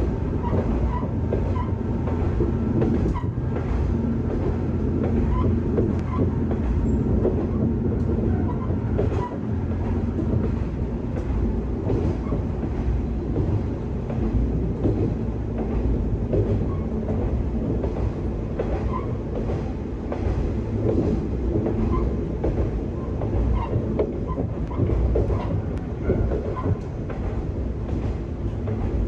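Kanto Railway KiHa 2000-series diesel railcar running steadily between stations: a continuous diesel engine drone, with the wheels clicking over rail joints.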